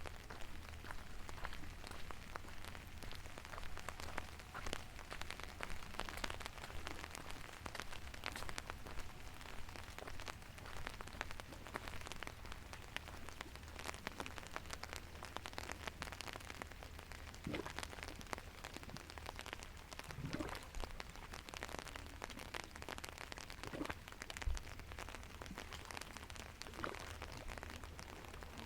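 Rain falling, with a steady wash and many separate drop strikes throughout. A low steady hum runs underneath.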